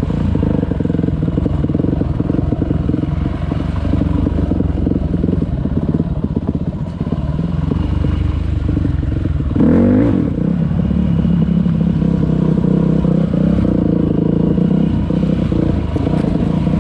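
A vehicle engine running steadily, with a brief rise and fall in pitch about ten seconds in.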